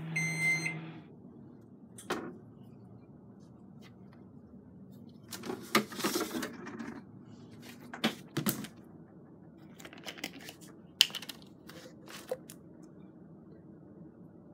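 A microwave oven's running hum stops about a second in as it gives one long beep at the end of its cycle. Then come a click, a stretch of paper towel rustling, and a scatter of sharp knocks and clicks from things being handled on the kitchen counter.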